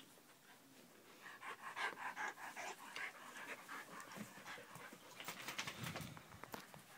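Dog panting in quick, rhythmic breaths, starting about a second in, from the exertion of a rough play fight.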